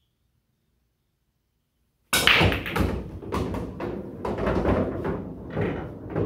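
Near silence, then about two seconds in a 9-ball break on a coin-operated bar-box pool table: a sudden sharp hit of the cue ball into the rack, followed by many knocks as the balls clatter off each other and the rails. The pocketed balls, the 1 and the 4, drop and rumble through the table's ball return.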